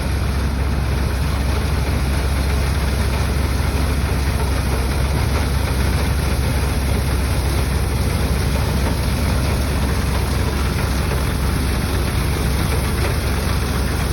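Heavy engine of a wheat-harvesting machine running steadily, a deep even hum under a constant rush of mechanical noise.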